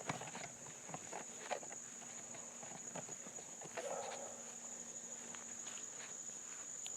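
Steady, high-pitched chirring of crickets or similar insects, with a few light footsteps and clicks in the first second and a half.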